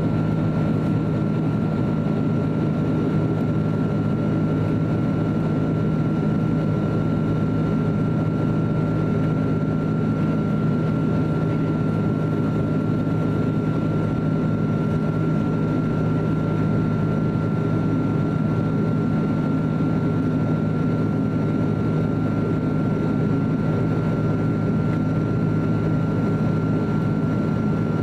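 Steady cabin noise of an Airbus A330-300 in flight, heard inside the cabin: the jet engines' low, even drone with a thin steady high whine above it.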